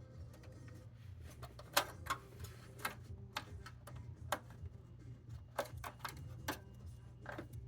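Irregular light clicks and taps, about a dozen with uneven spacing and the sharpest one near two seconds in, over a steady low hum.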